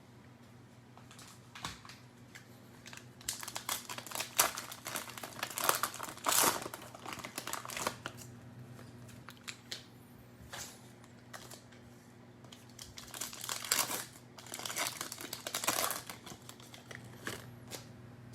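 Cellophane wrapper of a trading-card cello pack crinkling and tearing as it is opened by hand. The rustling comes in two spells, the first a few seconds in and the second near the end.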